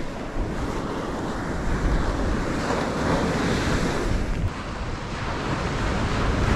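Ocean surf washing onto a sandy beach, with wind buffeting the microphone in low rumbles. The sound is a steady rush.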